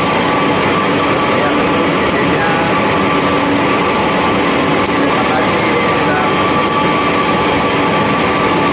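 A row of pellet mills running, each driven by a large electric motor: a loud, steady industrial din with a steady whine held throughout.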